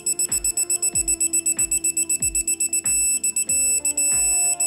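Electronic torque wrench beeping rapidly as a cylinder-head bolt is tightened to its 29 ft-lb first stage, the beep turning into a continuous tone twice near the end as the set torque is reached. Background music with a steady beat plays underneath.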